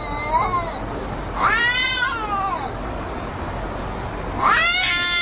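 Cats fighting: long, drawn-out yowls that rise and then fall in pitch. The tail of one call comes at the start, a full call about a second and a half in, and another begins near the end, over a steady background hiss.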